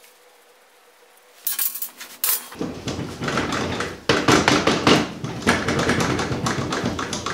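Metal wheel hub clanking and knocking on its spindle as a garden tractor's front wheel is worked off. A few clicks come about a second and a half in, and a run of irregular clatter starts a second later and continues.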